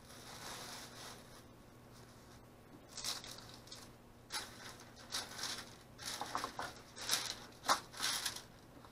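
Parchment paper and a plastic bag rustling and crinkling as they are handled, in irregular bursts that are busiest in the second half, with cardboard egg cartons being moved about.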